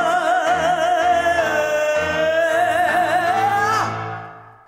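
A woman sings a long, held final note with vibrato over low piano chords. Near the end the note flicks sharply upward and breaks off, and the music fades away.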